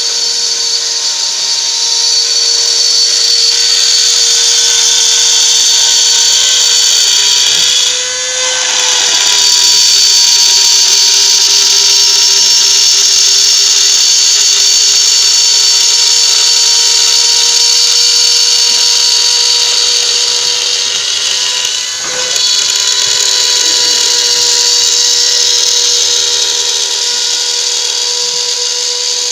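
CNC router spindle running with its bit cutting acrylic sheet: a loud, steady high-pitched whine with a hiss above it. It dips and shifts in pitch briefly about 8 seconds in and again about 22 seconds in.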